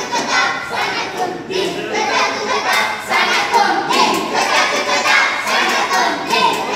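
A group of voices chanting together in unison, repeating words called out to them.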